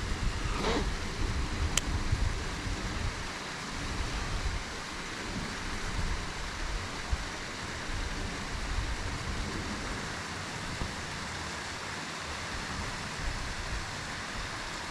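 Steady rushing-water noise, with a single sharp click about two seconds in.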